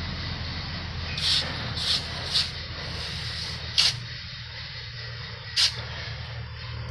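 Five short hissing sizzles from a red-hot steel bolo blade being quenched to harden its edge, over a steady low hum.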